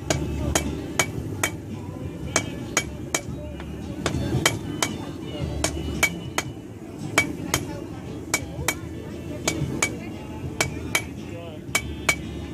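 Blacksmith's hammer striking hot iron on an anvil, about two to three blows a second in runs with short pauses, each blow leaving a faint ring; this is the drawing out of a short, abrupt taper.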